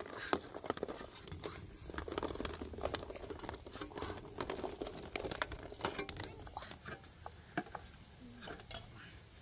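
Eggs bubbling in boiling water in a metal wok, with a metal ladle clicking and knocking against the eggs and the pan rim as they are scooped out. A steady high thin whine runs underneath until about two-thirds of the way through.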